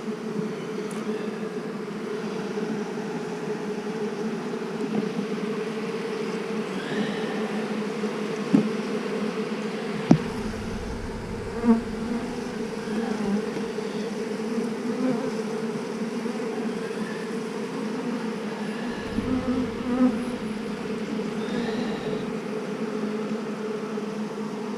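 Honeybees humming steadily in an opened two-frame mating nuc, a steady low drone. Three sharp knocks come near the middle.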